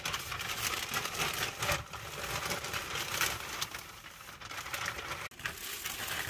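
Plastic mailer bag crinkling and rustling as a folded jacket is pulled out of it, with quick, irregular crackles throughout.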